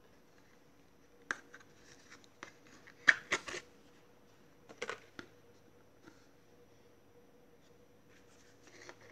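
Handmade cardboard tarot box handled by hand: a tight-fitting lid is worked off its base, giving a few scattered taps and scrapes of card and cardboard. The loudest comes about three seconds in.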